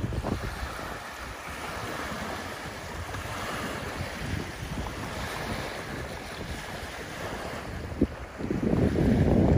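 Small lake waves lapping and breaking on a gravel shore and boat ramp, with wind buffeting the microphone; the wind rumble is heavier near the end. A single short knock about eight seconds in.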